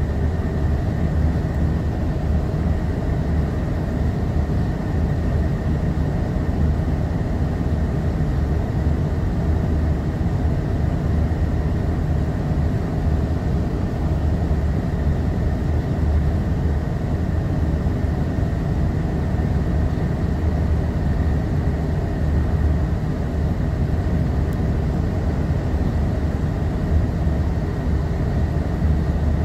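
A Scania L94UB bus's rear-mounted diesel engine idling steadily with the bus at a standstill, heard from inside the rear of the cabin, with a faint steady high tone above it.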